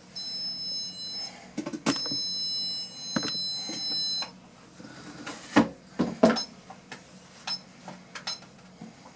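Electronic stud finder beeping as it is slid over the wall: two steady high beeps, the first about a second long, the second about two seconds, signalling a stud behind the sheetrock. After them come a few light clicks and knocks.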